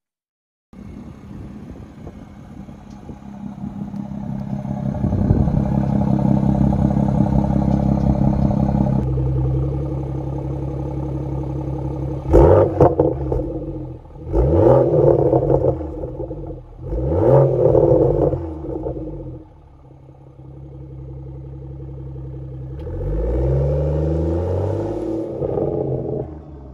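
BMW M240i's B58 turbocharged inline-six through an AWE cat-back exhaust (mid pipe and axle-back), running at idle. In the middle it is revved sharply three times, each rev falling back to idle. Near the end the car pulls away with a rising exhaust note.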